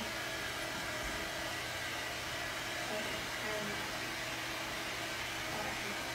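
Hair dryer running steadily with a constant rushing hiss.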